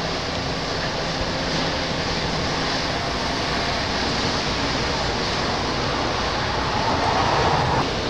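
Steady rush of wind and choppy North Sea waves, with wind rumbling on the microphone.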